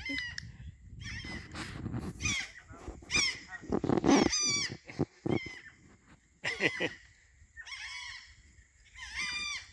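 A series of short, harsh animal cries with a warbling pitch, repeated at irregular intervals.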